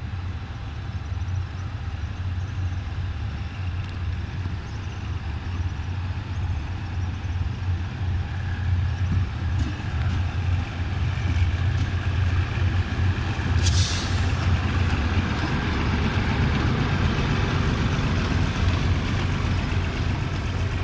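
Diesel locomotive's engine running with a steady low hum as it hauls a passenger train slowly past, growing louder as it draws near. A short, sharp hiss of air sounds about two-thirds of the way through.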